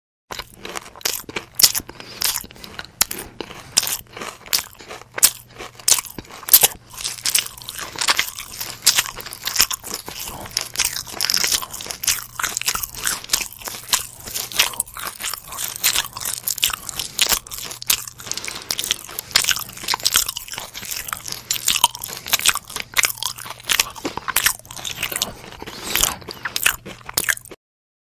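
A person chewing crunchy food close to the microphone: a long, dense run of crisp crackling crunches and bites. It starts just after the beginning and stops shortly before the end.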